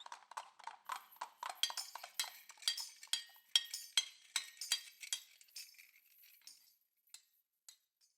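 Quick, irregular metallic clinks and knocks, several a second, with a faint high ring hanging after them. They thin out after about six seconds and stop just before the end.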